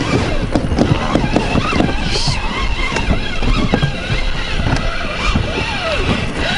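Wind buffeting the microphone: a steady rumbling rush, with a faint muffled voice underneath.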